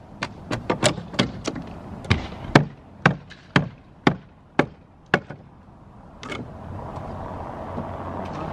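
Hammer blows on old wooden roof decking: a quick, uneven run of sharp strikes for about five seconds, then one more a second later, knocking a saw-cut section of roof board loose.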